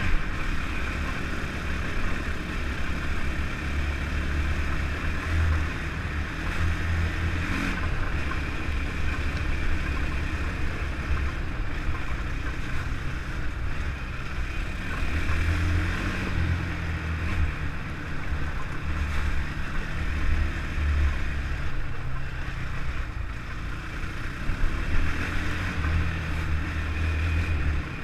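Honda TRX450R sport quad's single-cylinder four-stroke engine running under way on a dirt trail, its note rising and falling with the throttle.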